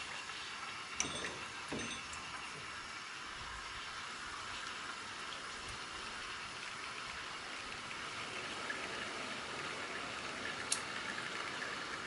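Steam wand of an Astoria Rapallo lever espresso machine hissing steadily into a stainless milk jug, steaming milk, with a few light metallic clicks about a second in and near the end.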